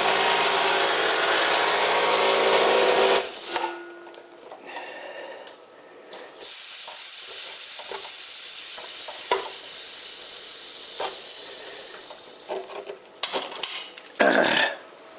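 Air compressor running with a steady motor hum, then shut off about three seconds in. After a few seconds of small clicks, compressed air hisses out for about six seconds, followed by a few knocks near the end.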